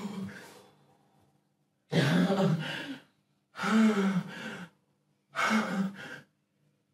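A person sobbing in four heavy, gasping cries about one and a half to two seconds apart, each voiced and breathy with silence between.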